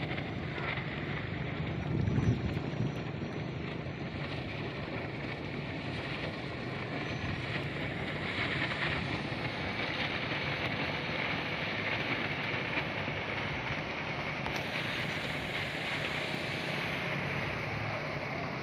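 Speedboat underway at speed: its engine runs steadily under a constant rush of water and wind on the microphone, with a brief louder swell about two seconds in.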